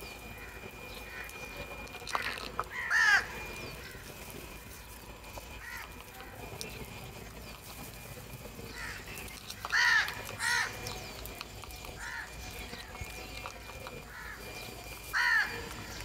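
House crows cawing: short harsh caws about three seconds in, two close together around ten seconds, and another near the end, with fainter calls between.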